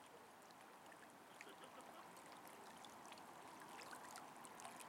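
Near silence: faint lapping of small waves at a lake shore, with scattered light ticks of water.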